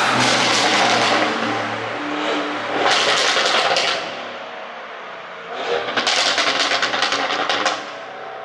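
2021 Audi RS7's twin-turbo V8 and exhaust under a pop-and-crackle ECU tune: loud engine noise at the start and again briefly about three seconds in, then a quick string of exhaust pops and crackles lasting about two seconds, several a second.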